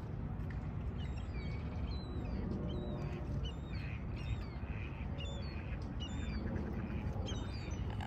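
A flock of gulls calling, many short calls one after another, over a steady low rumble.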